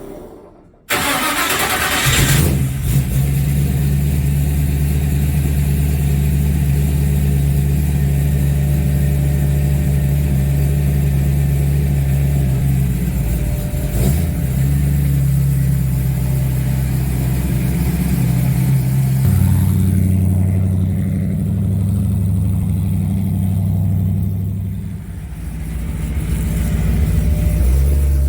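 A vehicle engine starting just under a second in, then running steadily with a deep, even note; it slows about two-thirds of the way through, dips briefly and picks up again near the end.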